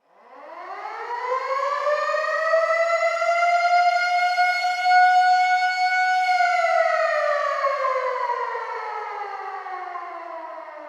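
Air raid (civil defense) siren starting from silence: its wail rises in pitch over the first couple of seconds, holds a steady high note for about four seconds, then winds down in a long, slowly falling tone.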